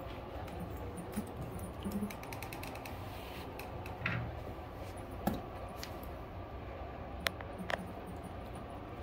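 Light, irregular clicking and tapping of a pet mink's claws and feet on a hardwood floor as it scampers about, with a few sharper clicks about five seconds in and twice between seven and eight seconds, over a low steady room hum.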